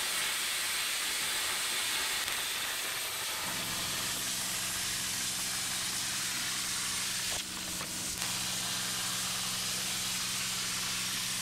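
Plasma cutter cutting steel plate along a straightedge: a loud, steady hiss. A steady low hum joins in about three seconds in, and the hiss dips briefly about two-thirds of the way through.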